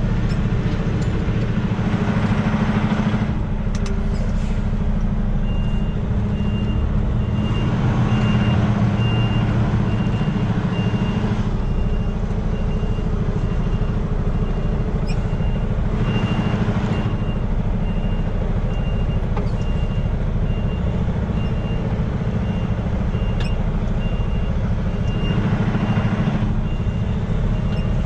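Semi truck's diesel engine running low and steady, heard from inside the cab as the truck backs up. A reversing alarm beeps at an even pace from about five seconds in.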